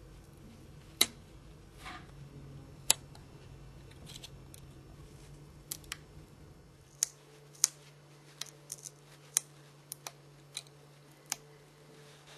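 Small hand tools and phone parts clicking and tapping, about a dozen sharp clicks at irregular intervals, as a Nokia 6210 Navigator mobile phone is taken apart. A faint low hum runs underneath and changes pitch about seven seconds in.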